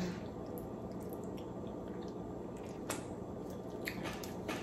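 Faint wet squishing and a few small clicks in the second half as a steamed blue crab is picked apart by hand, its meat pulled from the shell.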